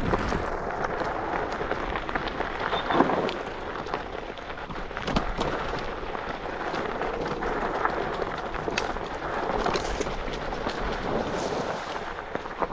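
Electric scooter on the move: wind buffeting the action camera's microphone over the rumble and rattle of the scooter, with scattered clicks and knocks and a faint steady whine.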